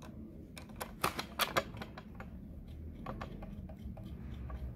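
Light metallic clicks and ticks of a screwdriver and small screws against a sewing machine head as a screw is started and turned into its hole. A cluster of several clicks comes about a second in, with more scattered ones later.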